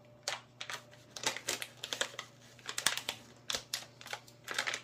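Crinkling and crackling of a small plastic food pouch being handled and opened, in quick irregular clicks.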